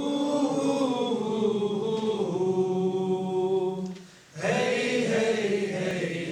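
Voices chanting in long held phrases over a steady low drone, breaking off briefly about four seconds in before the next phrase.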